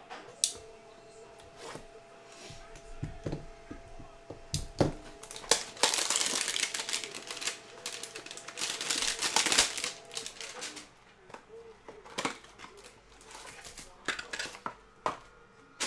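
A cardboard hanger box of trading cards being opened and its plastic-wrapped card pack torn open, with a dense crinkling, crackling stretch from about five to ten seconds in. Scattered light clicks and taps of card stock being handled come before and after it.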